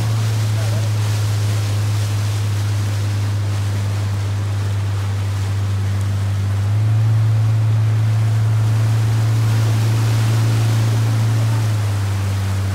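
Small boat's motor running at low cruising speed, a steady low drone that rises slightly in pitch and gets a little louder about seven seconds in, then eases back near the end, with hiss of water and wind over it.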